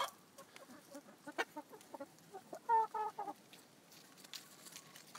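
Hens clucking softly while they peck and scratch through a compost pile, with scattered light ticks throughout; a quick run of three short clucks comes a little past halfway.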